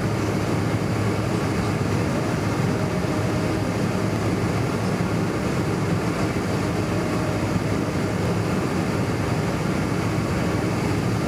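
Steady rush and low hum of engine and airflow noise inside the cabin of a Boeing 747 airliner.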